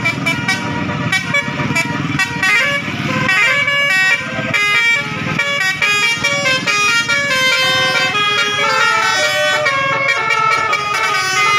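Basuri 'telolet' multi-tone bus air horn playing a quick tune of short notes that step up and down in pitch, over a low rumble for the first few seconds.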